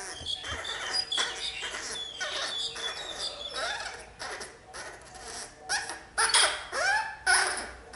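Baby macaque squeaking in a string of high, thin calls, with a few louder cries that rise and fall in pitch in the last two seconds.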